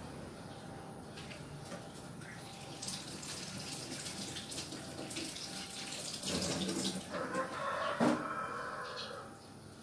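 Water sounds, a steady watery rush that grows louder about three seconds in, with a single sharp knock about eight seconds in.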